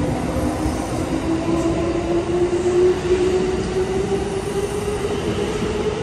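Kintetsu electric train moving along the platform: rumble of wheels on rail under a steady motor whine that rises slowly in pitch as the train gains speed.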